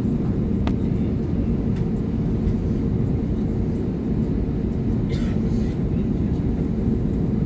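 Airbus A320 cabin noise while taxiing: the engines' steady drone with a low hum, heard from inside the cabin. A single sharp click sounds about a second in.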